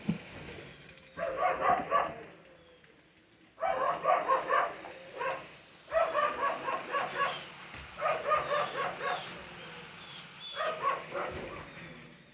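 Dogs barking and yapping in five quick bouts, each a rapid run of short barks lasting a second or two, with short pauses between.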